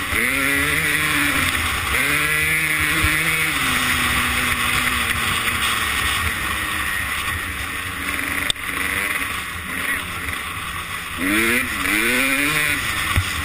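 250cc two-stroke motocross bike engine running under load, its pitch rising and falling with the throttle. Near the end it revs up in three quick rising sweeps.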